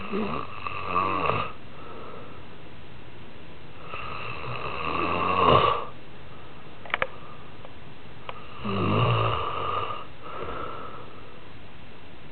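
A man snoring in his sleep: three long snores about four seconds apart, each building and then breaking off, with a quick double click between the second and third.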